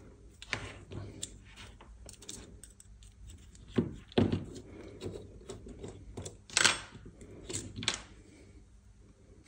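Irregular clicks and light clinks of small brake parts and tools being handled while a hydraulic disc brake is taken apart, with a few louder knocks about four and seven seconds in.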